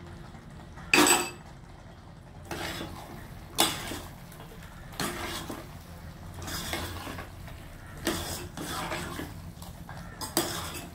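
Metal spoon stirring thick chicken masala in a steel pot: wet scraping swishes with clinks against the pot's side every second or two, the loudest knock about a second in.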